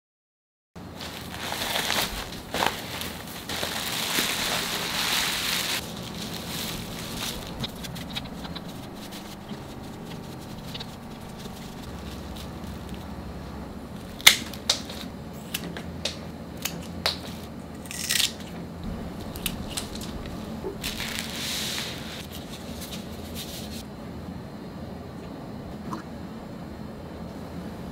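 Fresh flower stems being trimmed and stripped by hand: rustling and tearing of leaves and stalks, with a few sharp snips of cutting shears around the middle.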